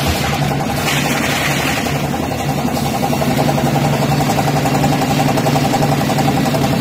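Vacuum brick-bag packing machine running: a steady mechanical hum with a fast rhythmic pulsing, and a brief hiss about a second in.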